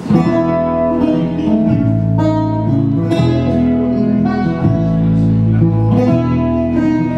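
Instrumental break of a folk song: strummed acoustic guitar with an upright double bass playing plucked notes underneath, the bass notes growing stronger about two seconds in.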